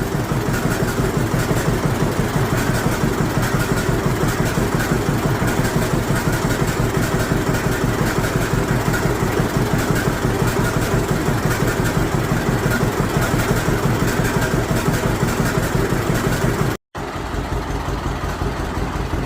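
1948 John Deere Model A's two-cylinder engine running slow and smooth with its even popping exhaust beat, the classic John Deere pop. The sound cuts out for an instant near the end.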